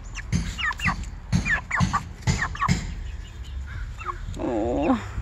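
Chickens clucking: a quick string of short calls, then a longer wavering call that falls in pitch near the end.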